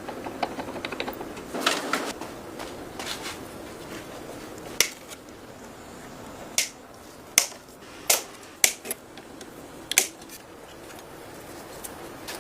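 Sharp clicks and knocks of a rusty K98 rifle's parts being handled: quick light ticks at first, then about eight louder, irregularly spaced clicks.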